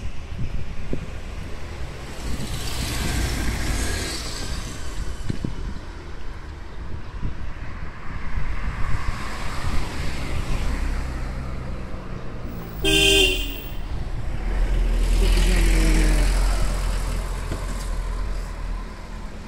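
Road traffic on a city street, vehicles passing one after another in swells over a low rumble, with one short car horn toot about thirteen seconds in.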